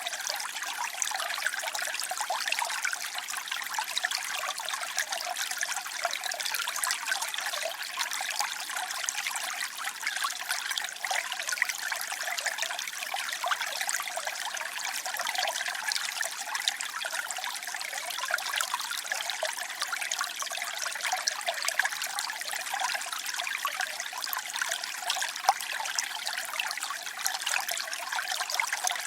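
Water trickling and splashing steadily, a continuous bright babble of small streams with no let-up.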